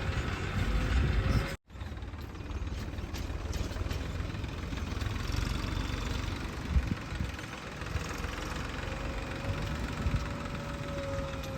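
Heavy diesel engine of earthmoving machinery running steadily, with a steady whine over the last few seconds. The sound drops out briefly less than two seconds in.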